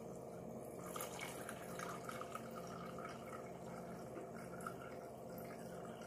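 Refrigerator door water dispenser running a thin stream of water into a glass of ice cubes, with a steady hum underneath.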